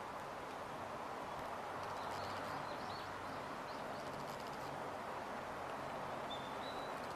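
Steady background noise with a few faint, brief high chirps about two seconds in and one longer chirp near the end.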